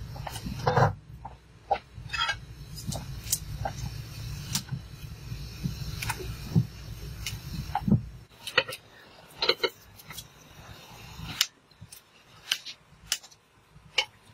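Scattered clinks and knocks of metal cooking utensils against pots as noodles are stirred on a wood-fired clay stove, over a low steady rumble that stops about two-thirds of the way through.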